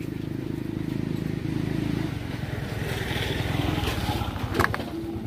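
A small engine running steadily, growing a little louder toward the middle, with one sharp knock about four and a half seconds in.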